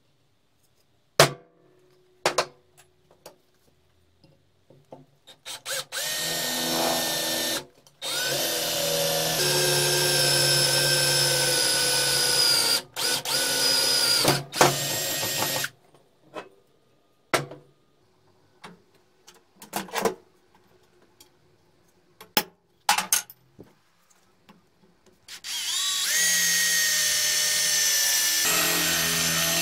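Two sharp taps on a centre punch, then a cordless drill boring into an old lawnmower engine's finned flywheel in several runs. Each run starts with a rising whine, and there are short stops between runs.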